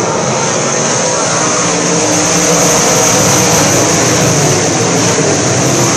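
Engines of a pack of southern sport mod dirt-track race cars running at racing speed. Loud and steady, swelling a little as the cars pass close near the middle.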